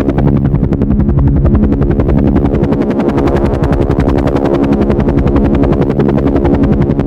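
Helicopter running loud and steady: the rotor blades chop in a rapid, even beat of about ten a second over a steady engine tone.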